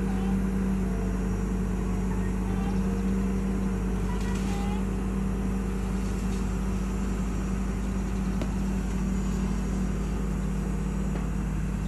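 Crawler excavator's diesel engine running steadily, a constant low hum with no change in pitch.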